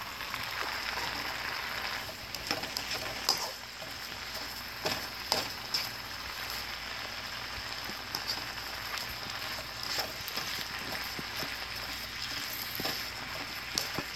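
Stir-fry vegetables sizzling in a hot pan, a steady frying hiss with scattered sharp clicks and taps.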